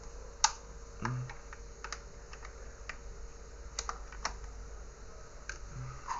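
Irregular light clicks and taps, about a dozen in all with the sharpest about half a second in, from handling the electric kettle and its repaired base to get them ready for a test.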